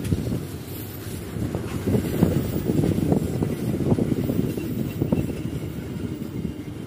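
Passenger coaches of a diesel-hauled local train rolling past close by, wheels rumbling on the track with irregular clicks and knocks from the rail joints.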